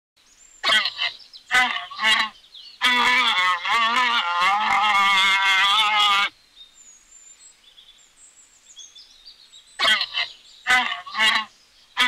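Llama calling: four short calls, then one long wavering call of about three seconds. After a quiet stretch with faint high chirps, four more short calls come near the end.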